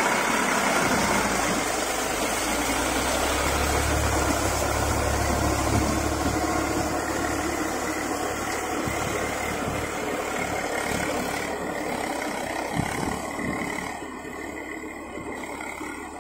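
Eicher 380 40 HP tractor's diesel engine running steadily while it pulls a rotavator through wet paddy mud. The engine grows fainter toward the end as the tractor moves away.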